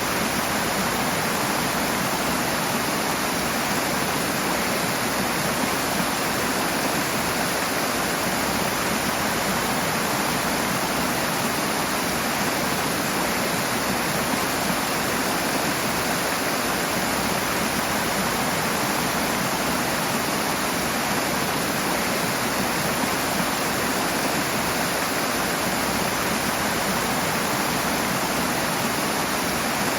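Rushing water: a fast stream or small waterfall pouring steadily, an even hiss without pauses.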